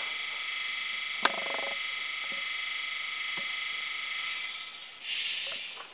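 Sampled locomotive air-compressor sound from a Jouef CC 70002 model's sound decoder, played through its small loudspeaker: a steady buzzing run with a single click about a second in. It fades out about four and a half seconds in and ends with a short hiss.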